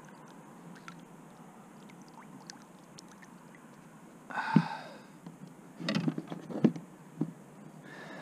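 A chub is lifted by hand out of the water beside a plastic kayak. There is faint water dripping and small clicks, a splash about four and a half seconds in, then a run of sharp knocks and clicks as the fish and tackle are handled against the hull.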